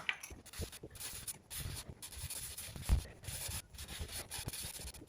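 Irregular rubbing and scraping strokes on a wooden cabinet, with a few light clicks and a single louder knock about three seconds in.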